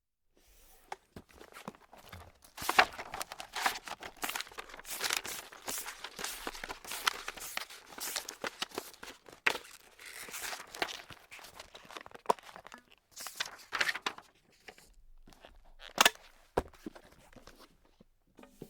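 Paper being crumpled and crinkled by hand, a dense run of crackles and sharp rustles, louder through the middle with a last burst about two-thirds of the way through.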